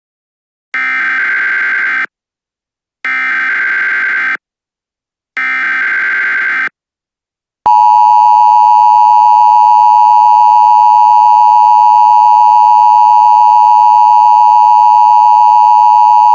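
Emergency Alert System opening: three short bursts of buzzy, warbling SAME header data tones, each lasting about a second with a second's gap between them. About halfway in, the loud, steady EAS two-tone attention signal starts.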